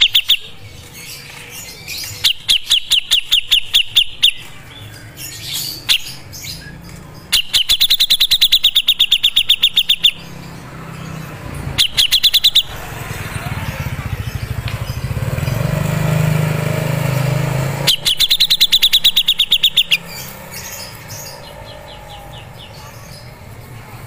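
A caged cucak jenggot (grey-cheeked bulbul) sings in full voice, rapid rattling runs of quickly repeated high notes, four bursts each lasting about one to three seconds. A low rumble swells and fades between the middle two bursts.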